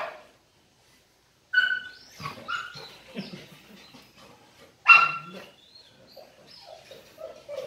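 Labrador retriever giving a series of short, high whining yips and bark-like cries, with quieter low grumbles between them; the loudest come at the very start and about five seconds in. These are the fussy, affection-seeking complaints of a dog being rubbed.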